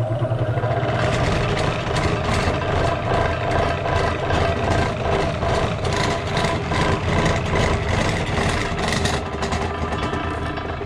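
Covington 6-inch combination lapidary cabbing machine running: a steady electric motor hum under a wet rushing noise from the diamond wheels spinning through a pan with too much water in it. The sound dies down near the end.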